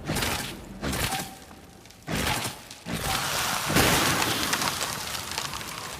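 Magic staff sound effect: a run of sudden blasts about a second apart, then a bigger burst a little after the middle that trails off in a long hissing decay.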